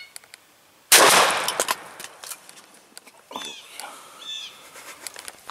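A single shotgun blast about a second in, fading out slowly, as the strutting wild turkey gobbler is shot. Scattered knocks follow, then two short high-pitched cries.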